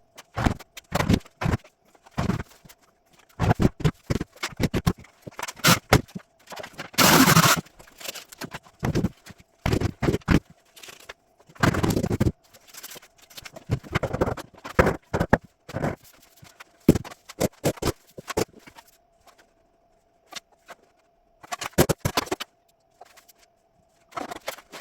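Irregular knocks and taps, some in quick runs, with a couple of longer scraping noises about seven and twelve seconds in: hand work on engineered wood flooring boards.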